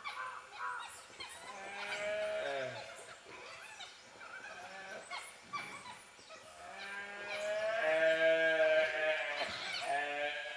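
Gaur calf bawling in distress as it is attacked by dholes: a series of drawn-out calls that bend in pitch. The longest and loudest call lasts about three seconds in the second half.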